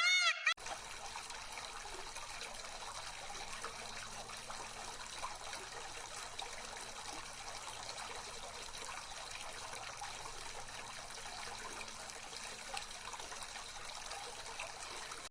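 Steady trickle of running water. An animal's bleat-like call cuts off in the first half second.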